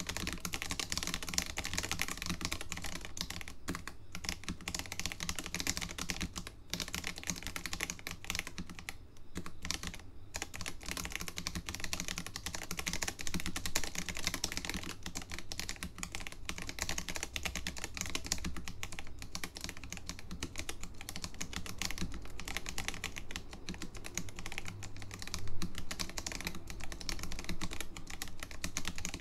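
Continuous typing on a caseless mechanical keyboard fitted with new-old-stock SMK second-generation orange linear switches: a dense, steady run of keystrokes, briefly thinning about nine seconds in.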